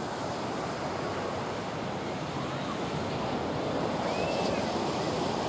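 Distant jet roar of a formation of F-16 fighters passing overhead: a steady rushing noise that grows slightly louder near the end.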